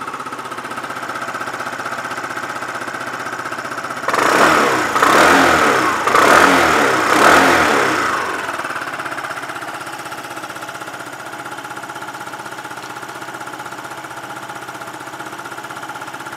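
2011 Yamaha Cygnus X SR scooter's 125 cc single-cylinder four-stroke engine idling steadily. About four seconds in it is revved three times in quick succession, then settles back to idle. The engine is described as in good running order.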